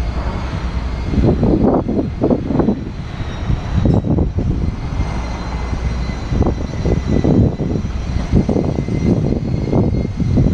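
Car engine running loudly through its exhaust, rising and falling in uneven surges over a steady low rumble.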